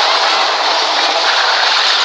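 Freight train passing: a steady, loud rushing noise with no separate beats or horn.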